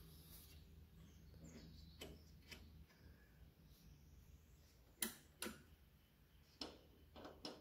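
Near silence broken by about six faint clicks and taps, the clearest a pair about five seconds in, with a faint low hum in the first few seconds: small handling noises while a phone camera is moved around inside a metal equipment cabinet.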